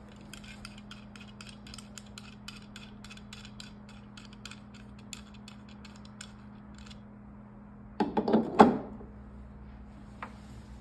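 Light, rapid ticking of a threaded knob being turned by hand on the threaded rod of a plastic laser-handpiece holder, about three to four ticks a second. About eight seconds in, a brief, louder clatter of hard plastic knocking as the holder is set into the machine's casing.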